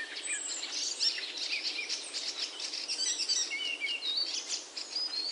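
Several birds chirping and singing, with many short whistled notes sliding up and down and overlapping.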